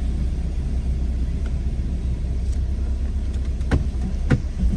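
Car engine running with a steady low rumble, heard from inside the cabin as the car reverses slowly. Two sharp clicks sound near the end.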